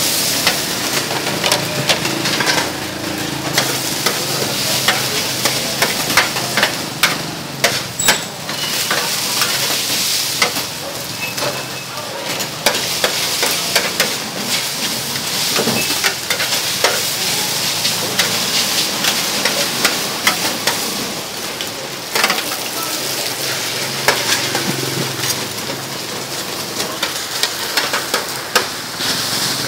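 Noodles sizzling on a flat metal griddle while a metal spatula scrapes and clacks against the plate as they are stir-fried, a steady hiss broken by many quick sharp clicks.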